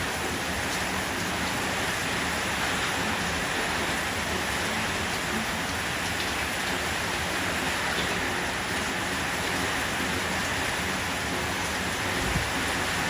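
Steady rain falling, an even unbroken hiss, with a brief low thud near the end.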